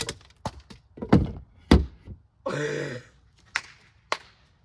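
A fireman's axe dropped onto a disco ball: a sharp crack at the start, then a run of heavy thunks and clatters as the axe bounces and flips over, the two deepest hits about one and two seconds in, a short rasping noise midway and two light knocks near the end.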